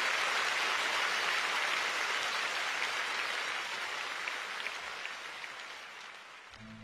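Large concert-hall audience applauding, the clapping slowly dying away. Just before the end, the soft held notes of an instrumental intro begin.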